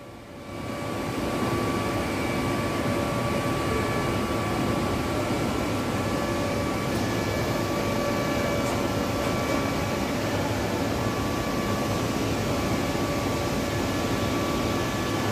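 Steady drone of industrial plant machinery: an even noise with a few faint constant whining tones, rising in level over the first second and then holding.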